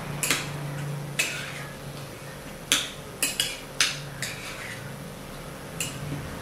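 Metal spoon stirring an oily garlic-chili sauce in a ceramic bowl, clinking against the bowl's sides about eight times. The sharpest clinks come in a quick cluster around the middle.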